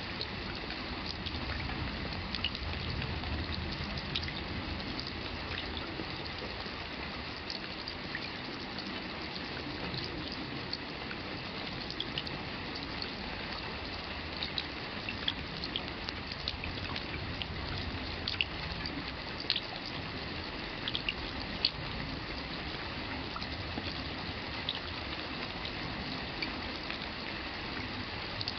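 Steady rain with close, irregular drops striking and splattering.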